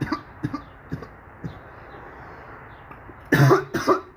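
A man's coughs and throat-clearing: a few short bursts in the first second and a half, then a louder cough a little over three seconds in and another just before the end.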